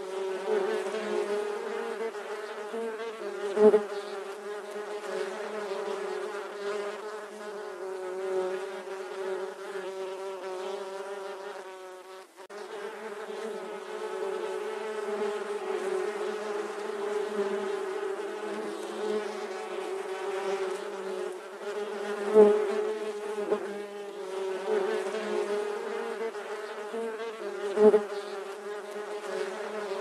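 Bees buzzing in flight: a steady, wavering hum of wingbeats with a few brief louder swells and a short dip about twelve seconds in.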